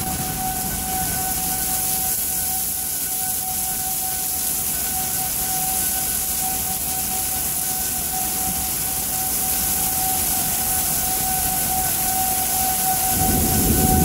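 Outdoor tornado warning siren sounding one steady tone, its pitch holding level, over heavy rain pouring down. A low rumble swells about a second before the end.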